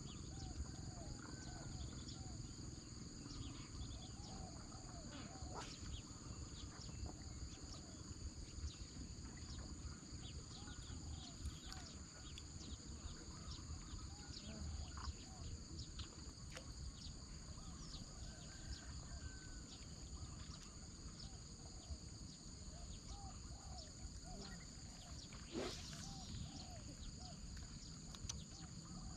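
Insects trilling steadily at a high pitch, with many short arching chirps repeated in quick runs over the top. One sharper, louder call comes about 25 seconds in.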